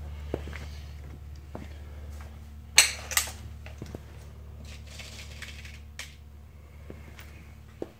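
Clicks and clacks of a Crosman Phantom break-barrel air rifle being handled and readied for the next shot, the loudest being two sharp clacks close together about three seconds in. A steady low hum runs underneath.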